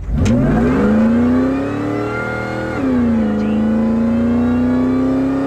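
2001 Ford SVT Lightning's supercharged 5.4-litre V8 launching hard from a standstill. Its pitch climbs for about two and a half seconds, drops at an upshift about three seconds in, then climbs again, with a higher whine rising alongside.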